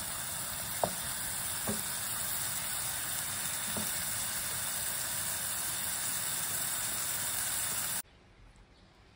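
Sliced mushrooms sizzling steadily in a frying pan on a gas stove, with a wooden spoon knocking against the pan three times while stirring. Near the end the sizzling cuts off suddenly.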